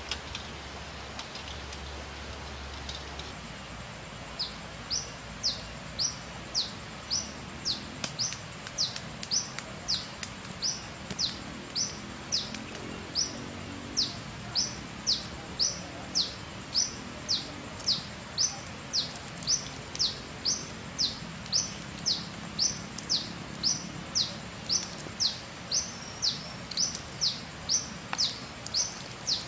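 A bird calling one short, sharp note over and over, about twice a second, starting about four seconds in.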